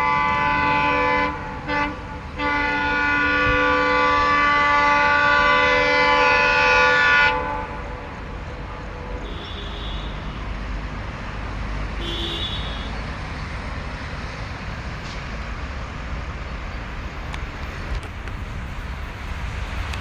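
A WDG-3A diesel locomotive blowing its multi-tone horn in a long, loud blast, broken twice briefly in the first two seconds. The horn cuts off after about seven seconds, leaving the steady rumble of the train running past, with two short, faint high toots.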